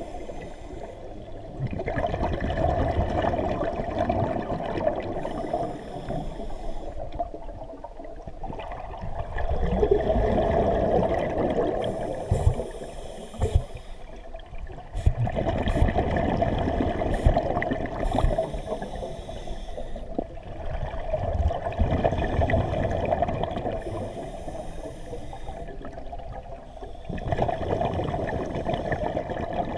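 Scuba diver breathing through a regulator, heard underwater: each exhalation is a few seconds of rushing, bubbling noise, and between them comes a short high hiss of inhalation. About one breath every six seconds, five breaths in all.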